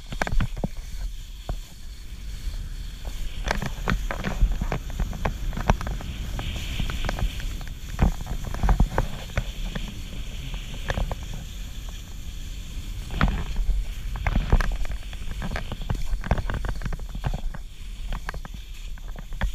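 Skis running over snow: a steady low rumble and scraping hiss, broken by frequent sharp knocks and clatter as the skis hit bumps.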